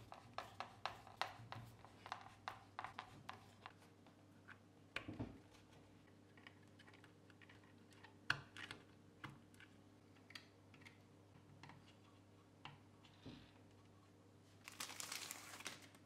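Small clicks and ticks of hand assembly work: a screwdriver working small screws into a panel, several clicks a second at first, then a soft thump and scattered clicks as wire connectors are handled and pushed home. A brief rustle comes near the end.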